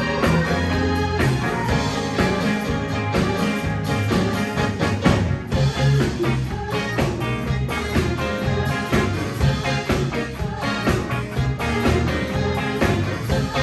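A live band playing an instrumental passage with organ, bass and drums at rehearsal.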